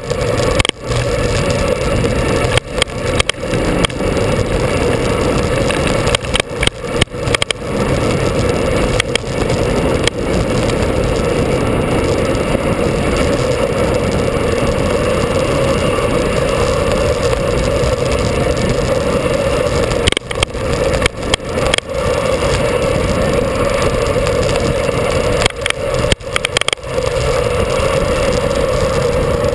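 Steady rush of wind and road noise on a moving action camera's microphone, cutting out briefly several times.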